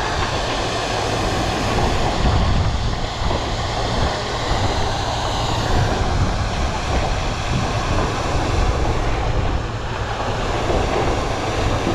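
Steady rushing of fire hose water streams over a low running-engine rumble from fire pumps, with wind buffeting the microphone.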